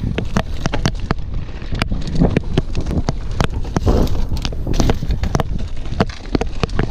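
Mountain bike clattering over rough singletrack at speed: many sharp, irregular knocks and rattles over a steady low rumble.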